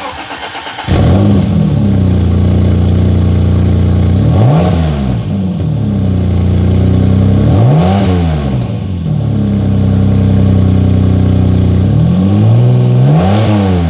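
Alfa Romeo 155's exhaust heard at the twin tailpipes: the engine catches about a second in and settles into a steady idle. It is revved in three short blips, each rising and falling back.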